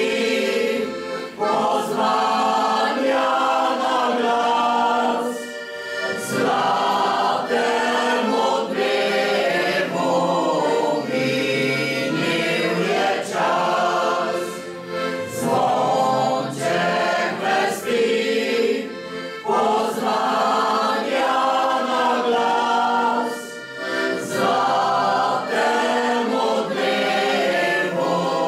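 Folk choir of women's and men's voices singing together with accordion accompaniment, in phrases broken by short breathing pauses.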